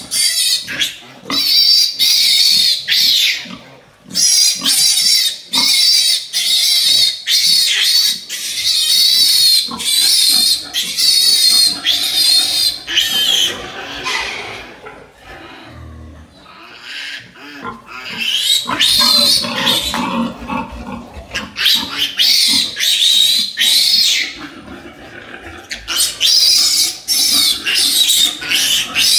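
Newborn piglets squealing loudly and repeatedly in high, wavering shrieks, the distress squeals of piglets being chased and caught by hand, with a couple of brief lulls.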